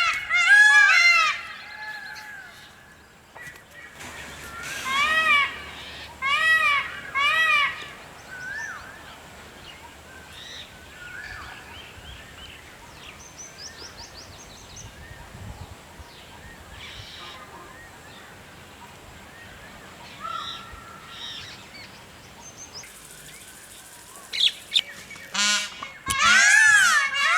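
Peacock calling: loud, honking calls repeated in quick bursts, at the start, from about five to eight seconds in and again near the end. Fainter chirps of smaller birds sound in between.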